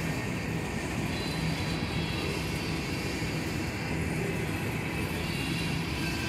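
Freight train of covered hoppers and boxcars rolling slowly past: a steady rumble of steel wheels on the rails.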